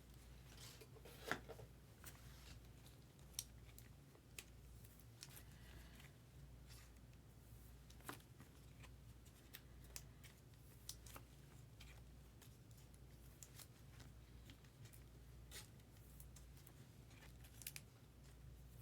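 Faint, scattered clicks and light rustles of trading cards and plastic card holders being handled and sorted, over a low steady room hum; near silence otherwise.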